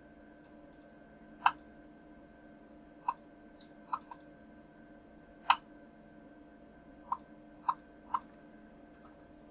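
Computer mouse clicking: about eight short, separate clicks at uneven spacing, over a faint steady hum.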